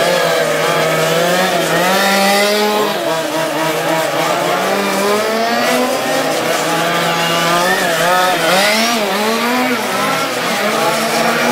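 Several 1:5 scale RC racing cars with small two-stroke petrol engines running on a track, their pitches overlapping and rising and falling as they accelerate out of bends and lift off into them.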